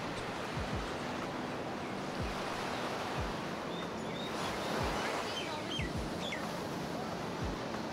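Gentle surf washing on a sandy beach as a steady rush, with a few short bird chirps about halfway through and occasional low thumps of wind on the microphone.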